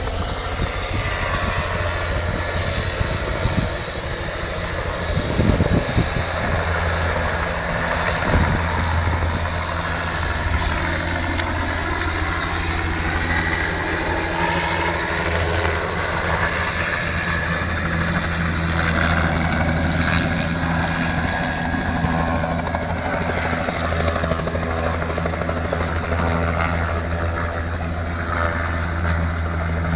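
Helicopter landing, its rotor and turbine running steadily: a low, even rotor beat under a higher whine that wavers in pitch.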